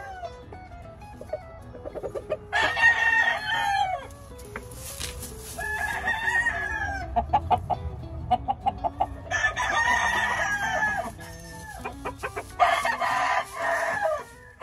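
Rooster crowing four times, each crow lasting about a second and a half, with pauses of a second or two between them.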